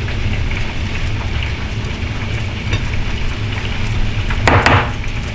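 Hot oil sizzling steadily as chicken tenders deep-fry, over a low hum. A brief louder burst of noise cuts in about four and a half seconds in.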